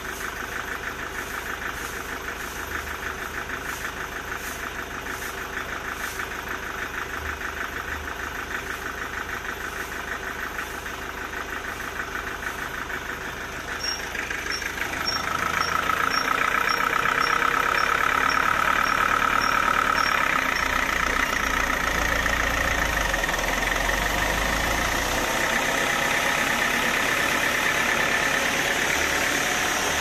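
Band sawmill running steadily. About halfway through it grows louder and a high, steady cutting tone sets in as the blade saws into a large acacia log.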